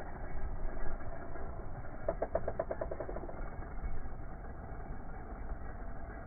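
Nitro .25 engine of a 1/8-scale Kyosho Inferno NEO ST 3.0 stadium truck running at a distance, with a quick even run of about a dozen pulses about two seconds in.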